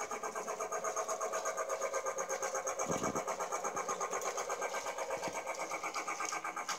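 Toy train running on a circular track, its small electric motor and wheels making a rapid, even clatter.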